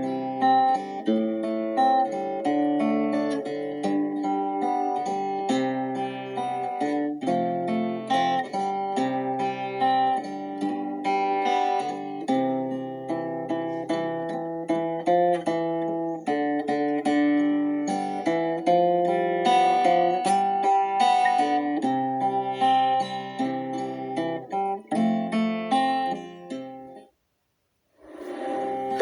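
Instrumental worship music on plucked acoustic guitar, picking out a slow melody over held notes. Near the end it stops for about a second, then the music starts again.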